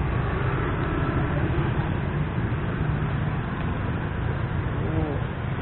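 Steady street traffic noise: a continuous low rumble of motorbike and vehicle engines going by on the road.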